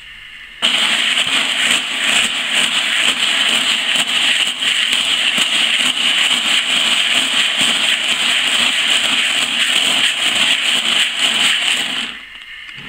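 Dry pelleted feed, wheat and barley stirred by hand in a plastic bucket: a loud, steady rushing rattle of grain. It starts sharply just under a second in and stops near the end.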